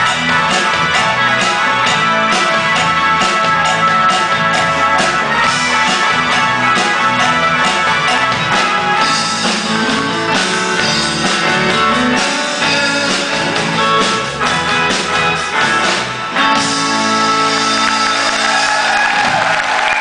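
Live rock band playing a song, with guitar and singing over drums and bass. About three quarters of the way through the playing gives way to a held final chord.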